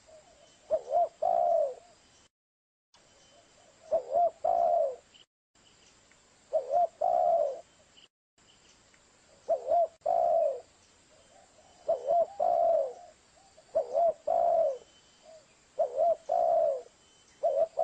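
Spotted dove (tekukur) cooing: a lure call of repeated phrases, one every two to three seconds, each a short hooked note followed by a longer coo. There are a few brief dead-silent gaps between phrases, as in an edited recording.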